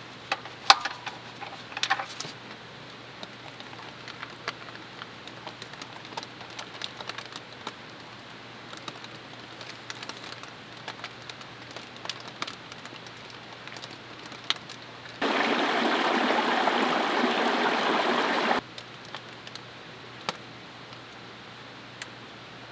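Scattered light clicks and taps of hand work, with a few sharper knocks at the start. Past the middle comes a steady hiss of about three and a half seconds that starts and stops sharply: an aerosol can of parts cleaner being sprayed to clean off spilt engine oil.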